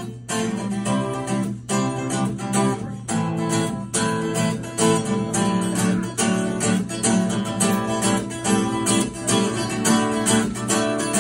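Acoustic guitar strummed in a steady rhythm, chords ringing with no singing.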